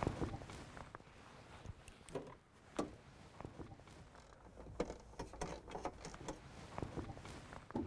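Faint clicks and light metallic taps of a wrench tightening the negative battery cable clamp onto the battery post, reconnecting the battery. The clicks come singly at first, then several in quick succession in the second half.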